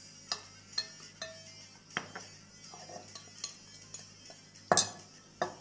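Metal spoon tapping and clinking against a glass bowl and glass jar while ground spice mix is spooned into the jar, a few scattered taps, then louder knocks of glass near the end as the bowl is lifted and tipped.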